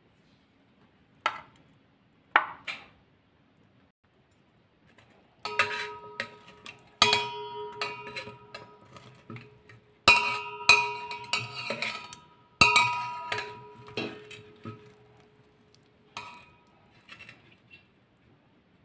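Metal tongs clinking and scraping against a steel pot while turning fried bread slices in sugar syrup, with the pot ringing after each knock. Two single knocks come first, then a busier run of clinks and scrapes from about five seconds in, easing off near the end.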